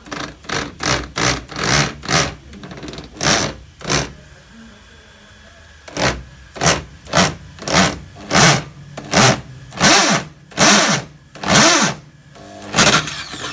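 Electric drill cutting holes in a Perodua Kancil's plastic rear bumper, run in short trigger bursts about twice a second, the motor's pitch rising and falling with each burst. There is a short pause about four seconds in.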